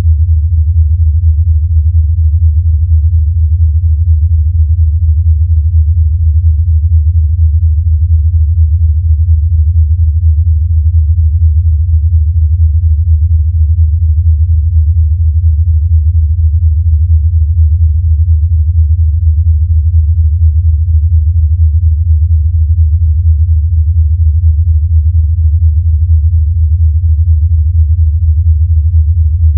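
Sonified X-ray signal from the black hole binary XTE J1650-500, played as a loud, steady low hum with a fast, even flutter.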